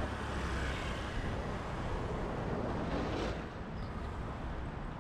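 Street traffic noise: a steady rumble and hiss of passing vehicles, swelling a little about three seconds in as a vehicle goes by.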